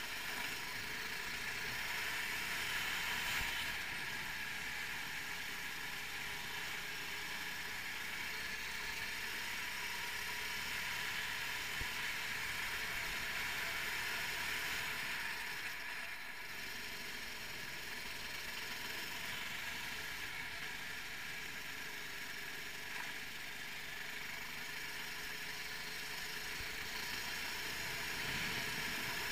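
A 390cc single-cylinder four-stroke kart engine running at speed through a lap, with a steady engine note. Its level dips briefly about halfway through.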